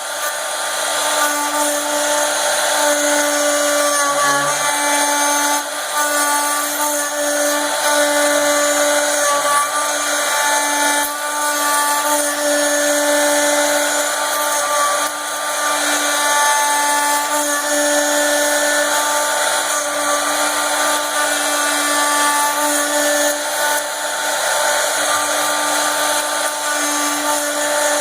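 Rynk CNC router spindle machining a workpiece held on the rotary axis: a steady high-speed spindle whine over continuous cutting noise.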